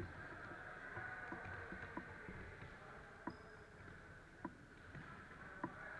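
Football kicks and bounces with children's running footsteps on a wooden sports-hall floor: scattered sharp thuds every half second or so, ringing briefly in the hall.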